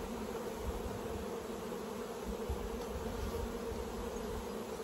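Honeybees buzzing in a steady hum around an opened hive, the bees crawling over the top frames and flying about.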